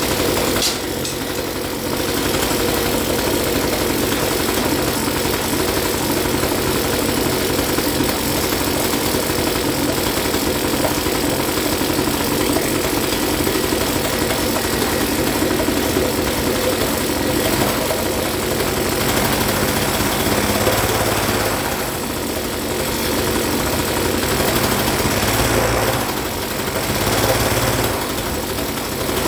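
Hangkai 3.5 hp outboard motor running steadily, with small dips in level now and then. Its cooling system is pumping water, which the owner takes to mean the impeller is working properly.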